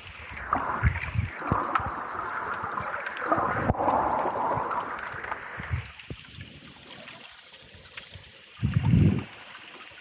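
Water sloshing and gurgling against a camera held underwater, heard muffled. A rushing hiss for the first few seconds, then it settles, with a dull low thump near the end.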